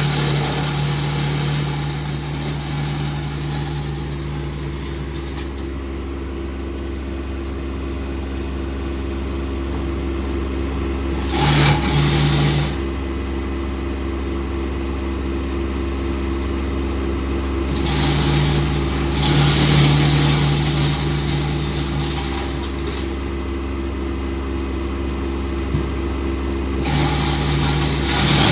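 Tractor-driven Farmry wood chipper running steadily. Three times it grows louder and harsher as wood goes through it: briefly near the middle, for a few seconds later on, and again at the end.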